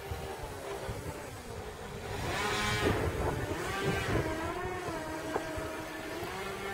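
RC model aerobatic plane's contra-rotating propellers and motor buzzing in flight, the pitch rising and falling. It grows louder about two seconds in as the plane passes closest, then eases off.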